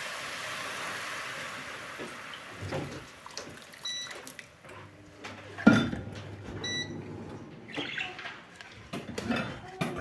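Household clatter: a steady hiss that fades over the first few seconds, then scattered knocks and short ringing clinks, the loudest a sharp knock just before six seconds in.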